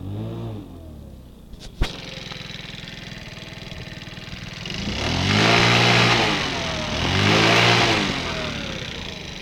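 ABM Tornado's engine running: a sharp click about two seconds in, then a steady idle with a fast even beat, revved twice in the second half, each rev rising and falling back to idle.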